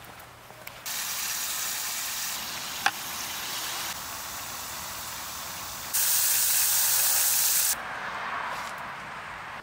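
Water running from a tap into a plastic wash bucket to dilute car shampoo: a steady rushing hiss that starts about a second in and gets louder for a couple of seconds near the end. One sharp click about three seconds in.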